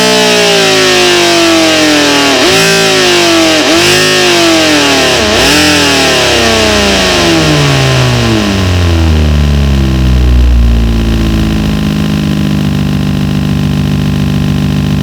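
A synthesized inline-seven engine sound, made in FL Studio, winds down from high revs. Its pitch falls steadily, with a few brief sharp dips, then it settles into a steady low idle about two-thirds of the way in.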